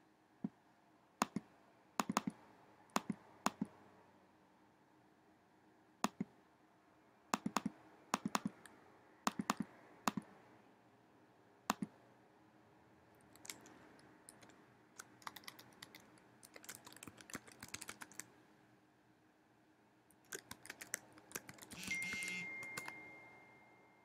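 Single clicks on a computer keyboard and mouse, spaced a second or two apart, then quick runs of typing as a short phrase is keyed in. Near the end comes a short hiss, followed by a faint steady high tone.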